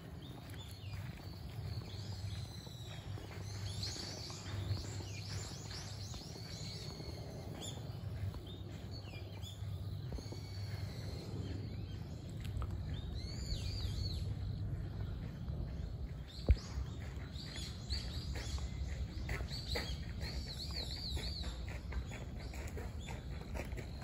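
Several birds chirping and warbling over a steady low rumble of outdoor background noise, with one sharp knock about two-thirds of the way through.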